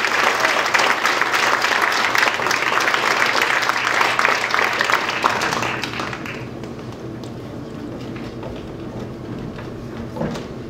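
Audience applauding, the clapping dying away about six seconds in, followed by quieter footsteps and shuffling.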